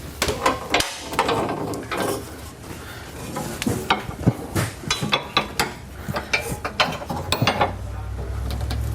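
Hand ratchet wrench clicking in short runs as suspension bolts are run in, among clinks of tools and metal parts. A low steady hum comes in near the end.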